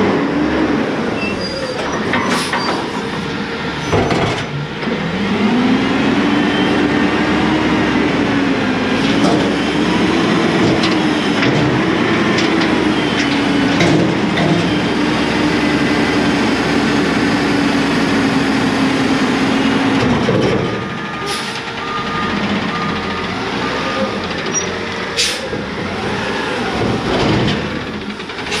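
Heil front-loader garbage truck's diesel engine running and working, with a sustained drone that wavers in pitch for about fifteen seconds before dropping away, and a few short sharp clanks or hisses; near the end the truck is lifting a dumpster on its front forks.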